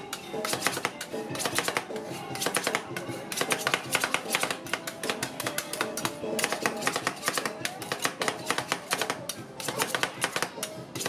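Two metal spatulas rapidly chopping and tapping ice cream mixture on a steel cold plate: a quick, continuous clatter of metal striking metal, making Thai rolled ice cream. Background music plays underneath.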